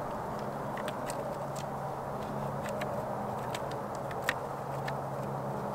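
Thin twigs clicking and snapping now and then as they are woven by hand through a stick frame, the sharpest click about four seconds in, over a steady low hum.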